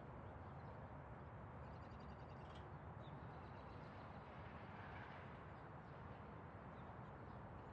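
Near silence: faint steady hiss with a low hum, the room tone of an answer pause.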